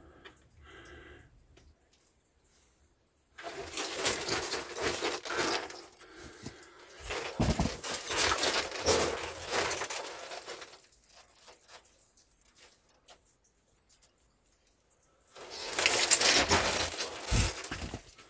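Rustling and scraping of a person moving about in a cave passage, in two stretches of several seconds with a quiet gap between.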